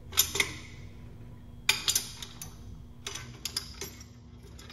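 Sharp metallic clicks and clinks in three short clusters as a hand tool works the steel bolts and hardware on the excavator's tow hitch, over a steady low hum.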